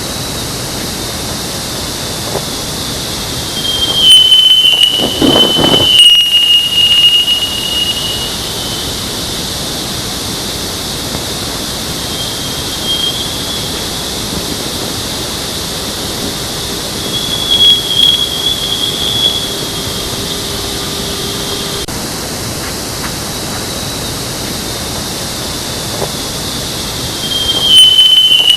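Sonified Voyager spacecraft plasma-wave recording: a steady hiss with thin, high whistling tones that slide a little in pitch. Loud rushing swells come about four seconds in and again near the end.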